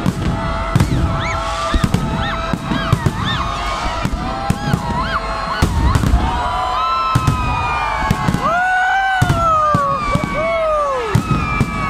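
Fireworks and firecrackers going off again and again, sharp bangs in quick succession over a loud crowd din. Many whistle-like tones slide up and down in pitch throughout, with a longer falling glide around two-thirds of the way in.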